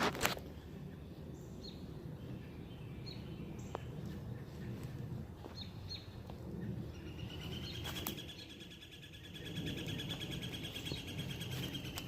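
Wild birds chirping, scattered short high calls, then a long, fast, steady trill starting about seven seconds in, over a low rumble of outdoor noise and a few sharp clicks.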